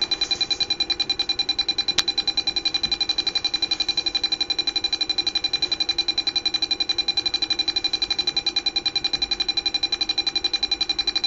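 Small speaker driven by an Arduino Mega2560 sounding a pulsing electronic tone, about eight pulses a second. The tone does not hold for the five seconds it was programmed for, so the sketch's timing is not working. A single click about two seconds in.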